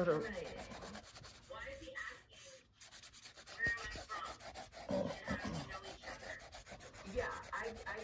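Paintbrush scrubbing watercolour paint across paper, a scratchy rubbing in many short strokes.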